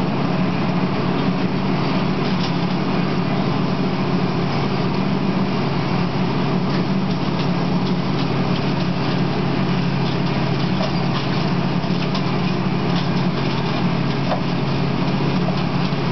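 Diesel engine of a rail-mounted tie-replacement machine running steadily, with a few faint metallic clicks over it.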